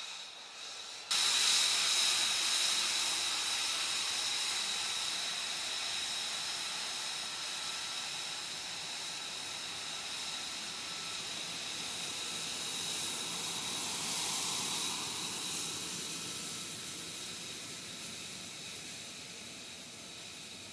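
F-35B's F135 turbofan jet engine at taxi power: a loud hissing whine with a steady high tone, starting suddenly about a second in and slowly fading as the jet taxis away.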